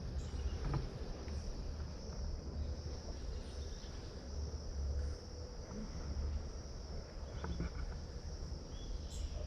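Steady high-pitched insect chorus, cricket-like, with a low rumble beneath.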